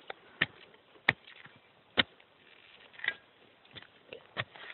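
A small shovel digging into earth: about half a dozen short, sharp knocks and scrapes of the blade in the soil, spaced irregularly.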